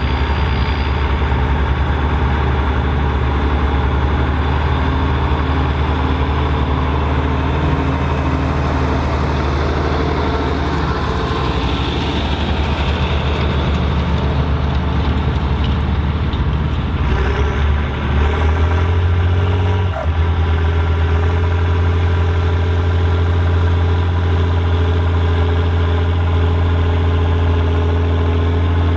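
Volvo BM 814 tractor's diesel engine running steadily under load while pulling a plough. About two-thirds of the way through, the engine note shifts and there is a brief dip in level.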